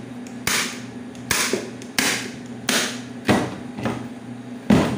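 Hand staple gun driving staples through upholstery cover into the edge of a chair seat: about seven sharp snaps, one every half to three-quarters of a second.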